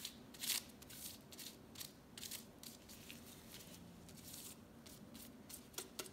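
Beetroot grated by hand on a flat stainless-steel grater: a quick run of short scraping strokes, about two to three a second.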